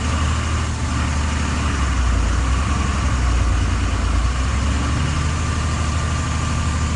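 An engine idling steadily, a low hum that shifts slightly in pitch about five seconds in, over an even rushing noise.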